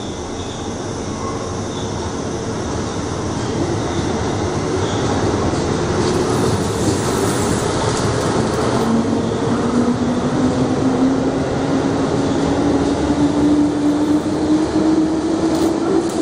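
JR West 221 series electric multiple unit pulling away and picking up speed. Its motor whine climbs slowly in pitch while the running noise of wheels on rail grows steadily louder, with a couple of sharp clacks near the end.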